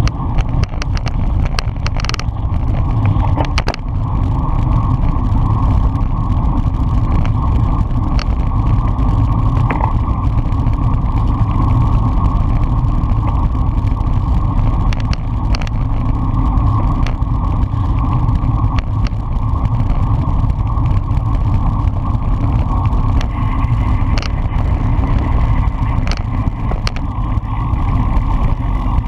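Wind rushing over the microphone of a camera on a road bike riding fast in a race pack: a loud, steady rumble, with scattered sharp clicks.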